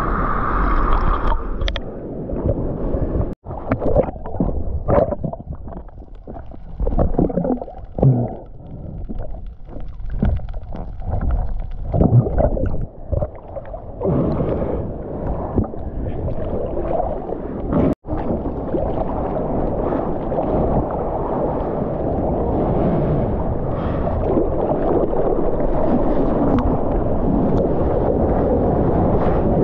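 Seawater sloshing and splashing around a GoPro held at water level as a surfer paddles, with uneven surges as the arms stroke and the lens dips through the surface. Two brief cut-outs, about a third and two-thirds of the way in. After the second one the sound becomes a steadier rush of water and wind.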